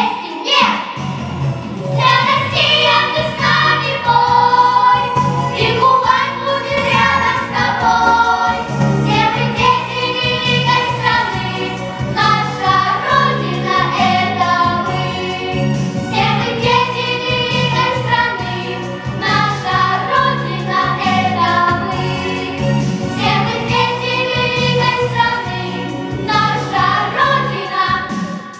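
Children's vocal ensemble singing a song into handheld microphones, with an instrumental accompaniment under the voices.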